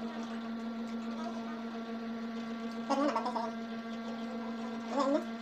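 Steady electrical hum, with two brief vocal sounds from the eater about three and five seconds in.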